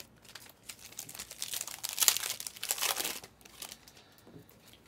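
Foil wrapper of a Panini Select basketball card pack crinkling as it is torn open, densest and loudest about two seconds in, dying away after about three seconds to a few soft ticks of cards being handled.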